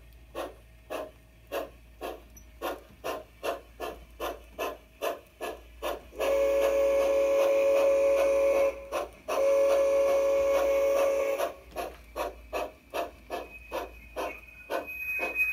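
Onboard sound system of a Bachmann large-scale Climax geared steam locomotive model: steady steam chuffs, about two to three a second, broken about six seconds in by two long steam-whistle blasts. The chuffing then resumes slightly faster as the locomotive picks up speed.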